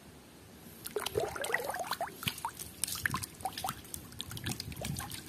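Hand swishing a plastic toy through a tub of water, splashing and sloshing with bubbly gurgles, starting about a second in.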